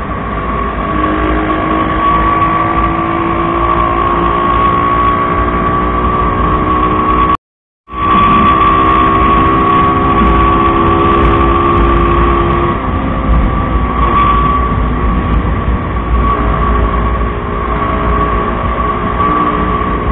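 Motorcycle running at a steady cruising speed: an even engine hum with a constant high whine and a low wind rumble on the mic. It cuts to silence for about half a second some seven seconds in.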